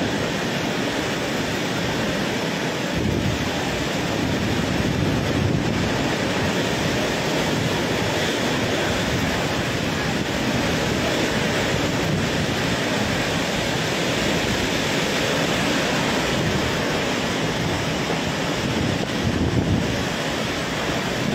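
Super typhoon winds and torrential rain: a steady, dense rush of noise, with gusts buffeting the microphone.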